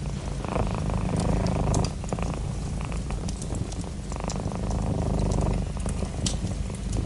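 Domestic cat purring close up, its purr swelling and easing with each breath every second or two. Sharp crackles from a wood fire in a fireplace are heard throughout.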